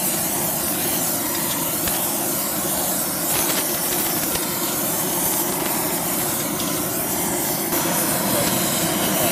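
Oxy-acetylene torch with a rosebud tip burning steadily against a cast aluminum transmission housing, slowly heating the repair area up to brazing temperature.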